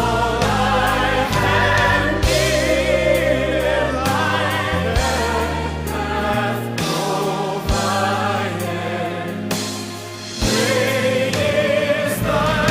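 Music: a choir singing a slow song over long held low notes, with a short dip in loudness about ten seconds in.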